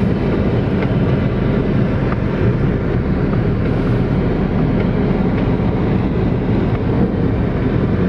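A car driving, heard from inside the cabin: a steady, even rumble of engine and road noise, with no change in pace.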